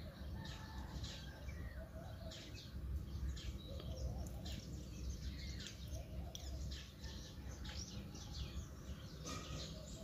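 Many small birds chirping and twittering, short overlapping chirps one after another, over a low steady background rumble.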